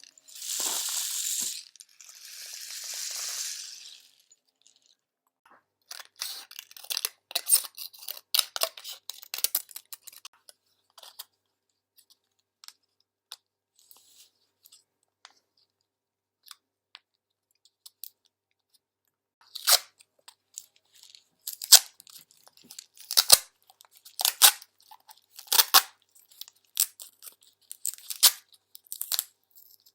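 Homemade cardboard-tube rain stick filled with split peas, the peas cascading past the screws inside. Two rushing swells of hiss in the first four seconds, then loose clicking and rattling that comes and goes, with louder, sharper rattles in the second half.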